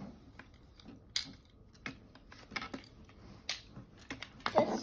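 Irregular light clicks and taps of Magformers Stick-O plastic magnetic building pieces being handled, snapped together and set down on a tabletop. A child starts speaking near the end.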